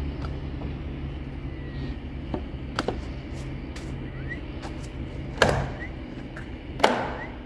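Sharp wooden knocks and clatter as plywood sheets and a homemade ladder hoist are handled, the two loudest knocks about five and a half and seven seconds in. A low steady hum fades out about five seconds in.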